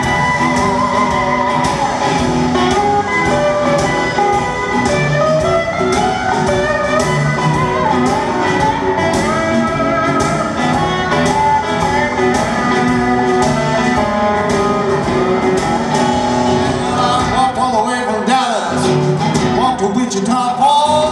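Live blues band heard from the arena audience: a steel guitar slides between notes over a steady drum beat and bass. Near the end the bass and drums thin out for a moment, then come back in.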